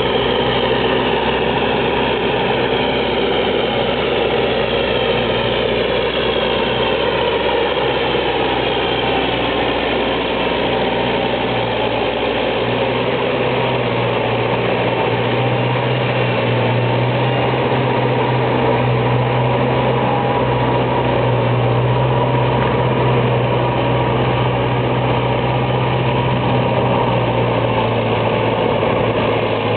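Belarus MTZ 952.3 tractor's four-cylinder diesel engine running steadily under the load of ploughing. A deep drone comes in stronger about halfway through.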